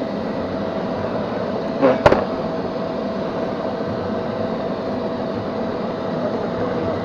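Neato XV-21 robot vacuum running with a steady motor hum and whine, with a sharp double knock about two seconds in.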